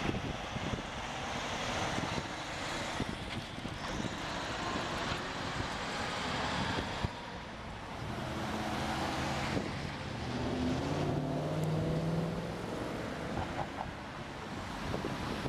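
Semi-trailer trucks driving past, their diesel engines running over steady road noise. One truck's engine drone is clearest in the second half, and a car passes close near the end.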